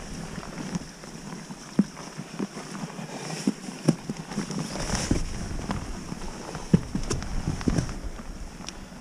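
Wind buffeting the microphone, with a low rumble that sets in about halfway through, over scattered short knocks and scuffs from scrambling on rock.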